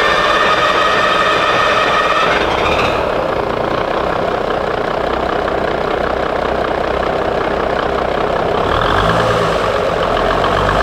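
Turbocharged Cummins 855 cubic-inch inline-six diesel running just after starting, a loud, steady diesel clatter. Its pitch drops about three seconds in and climbs again near the end.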